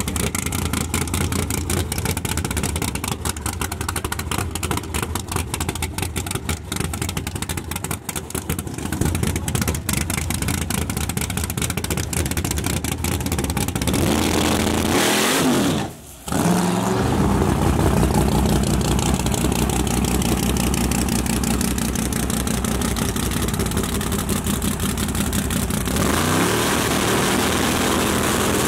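Big-block Camaro drag car's engine idling unevenly in rapid pulses, then revving up and back down about halfway through; after a brief dip it runs louder and steadier. Near the end the sound changes to another big-block engine, a pickup truck's.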